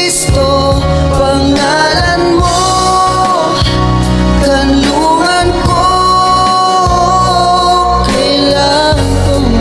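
A man singing a Tagalog Christian worship song over an instrumental backing track, with long held notes.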